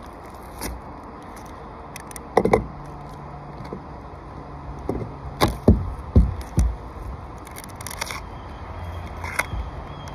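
Peel-and-stick butyl flashing tape being handled and pressed down on a roof: scattered crinkles and scrapes with a few sharp knocks, the loudest run of dull knocks coming between about five and seven seconds in.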